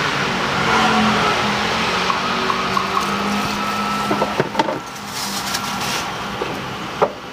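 Street traffic: steady road noise with an engine hum. A few light clicks come about four and a half seconds in, and one sharp click near the end.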